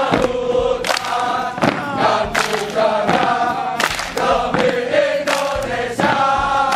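A formation of uniformed men singing a marching chant in unison as they jog, with sharp rhythmic beats about twice a second.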